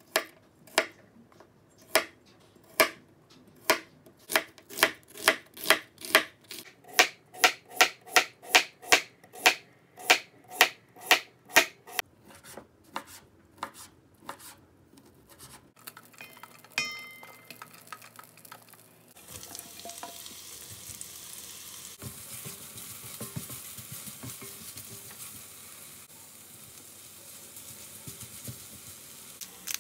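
A chef's knife chops on a wooden cutting board in steady strokes about two a second, quickening midway, as bacon and vegetables are cut. A metallic clink follows. Then butter, garlic, onion and bacon sizzle steadily in a cast iron pan, with small scrapes and clicks of stirring.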